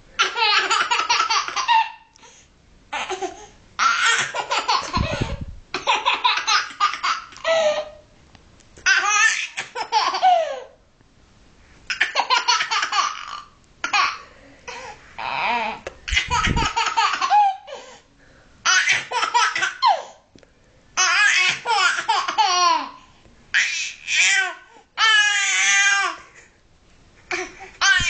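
Baby laughing hard in repeated fits: about a dozen bursts of one to two seconds each, with short pauses for breath between them.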